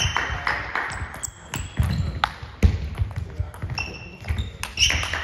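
Table tennis rally: the celluloid-type ball clicking sharply off the rubber bats and the table top in a quick run of hits and bounces, about two or three clicks a second.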